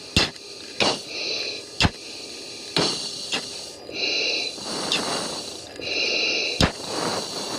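Breathing through an oxygen mask over the F-16's cockpit intercom: sharp valve clicks, hissing inhalations through the mask regulator and softer exhalations, repeating about every two to three seconds.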